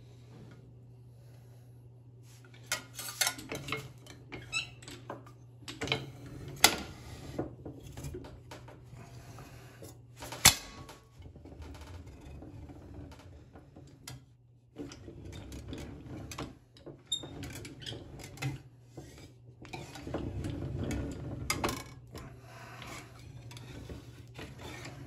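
Sheet metal being rolled into a cylinder on a hand-cranked slip roll: the thin sheet clanks and rattles against the steel rollers with several sharp metallic knocks, then a longer rumbling stretch as the crank turns the rolls, over a steady low hum.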